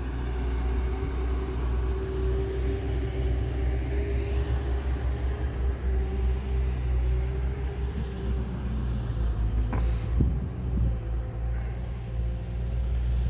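Diesel engine of heavy construction equipment running steadily, a low rumble with a steady hum over it, and one short knock about ten seconds in.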